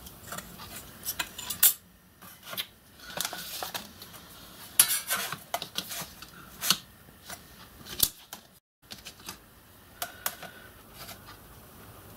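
Light clinks, knocks and short scrapes of metal tools and a brass sheet being handled on a workbench: a steel rule and marking gauge set down and moved, and the plate shifted and repositioned.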